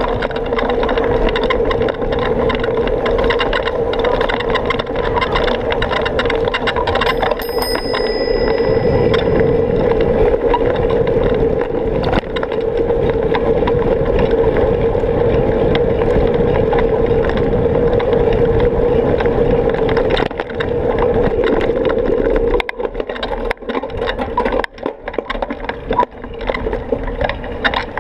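Bicycle riding along with the noise of wind and road on the mounted camera. A brief high ring comes about seven seconds in. From a few seconds before the end the sound turns choppy, with knocks and rattles.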